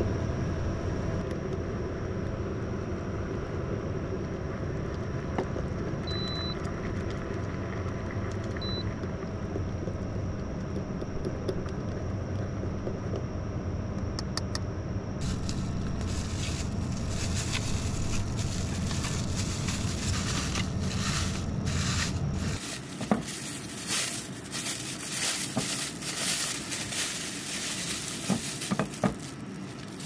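A steady low hum that stops abruptly about two-thirds of the way through. From about halfway, hands crinkle and rustle a plastic bag of boil-in-bag food.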